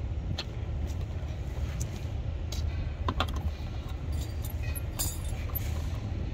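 Scattered light clicks and taps of plastic and metal as the cover of a plastic AC isolator switch is fitted and its screw is driven in with a screwdriver, over a steady low rumble.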